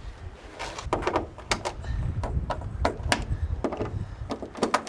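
Irregular sharp clicks and taps of a screwdriver working the screws of a small access panel on an engine nacelle, metal tool on metal fasteners, over a low rumble.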